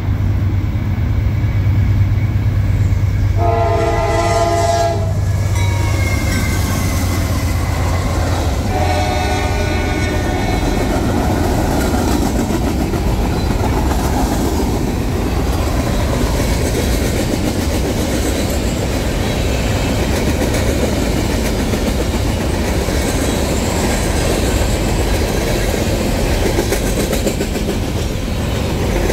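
Freight train passing close by. The locomotive's engine drones as it comes in, and its air horn sounds a short blast about four seconds in and a longer one about nine seconds in. A long string of flatcars loaded with trash containers then rolls past with a steady rumble of wheels on the rails.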